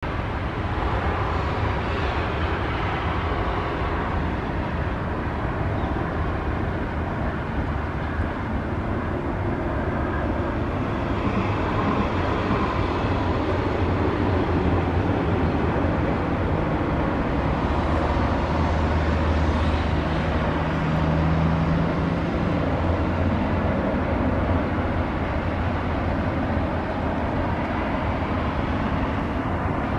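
Boeing 737 jet engines rumbling steadily on final approach, swelling slightly in the middle.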